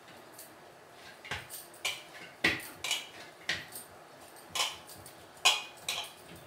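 Chapati dough being kneaded in a stainless steel bowl: light, irregular metallic clinks and knocks, about ten in all starting about a second in, as the dough is pressed and turned and the bowl and bangles move.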